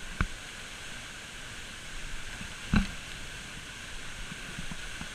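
Steady rushing hiss of falling water from a waterfall, with two sharp knocks, one near the start and one about halfway through.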